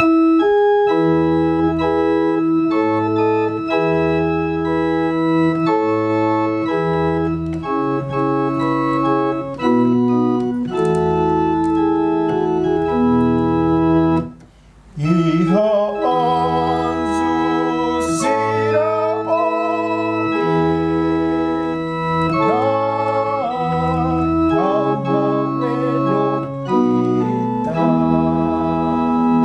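Electronic keyboard in an organ voice playing a slow introduction of held chords over a stepping bass. It pauses briefly about halfway through, then resumes with a wavering, vibrato melody line above the chords.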